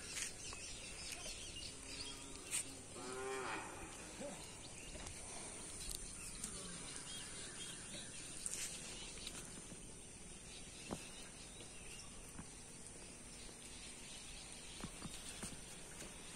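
A single drawn-out animal call about three seconds in, over a faint steady outdoor background with a few light clicks.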